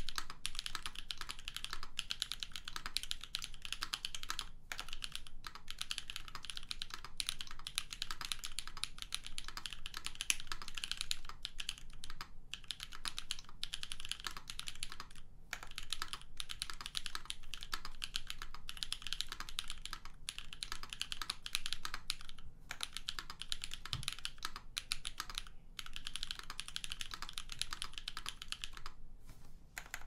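Continuous two-handed typing on a Savage 65 custom 65% mechanical keyboard with Holy Polar Panda tactile switches lubed with Krytox 204, an FR4 plate, polyfill dampening and GMK keycaps: a dense stream of key clacks broken by a few short pauses.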